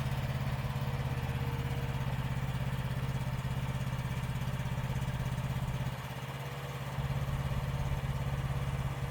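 Small diesel engine of a mini excavator running steadily at idle, dipping in level for about a second partway through.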